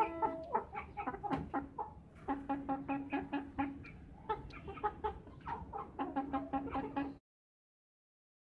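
Aseel chicken clucking in quick runs of short, pitched clucks with brief pauses between the runs. The sound cuts off suddenly about seven seconds in.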